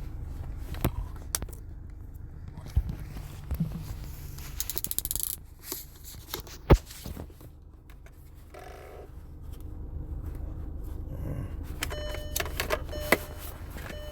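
Wind buffeting the microphone as a steady low rumble, with scattered clicks and knocks from handling, one loud knock about halfway through and a few short steady tones near the end.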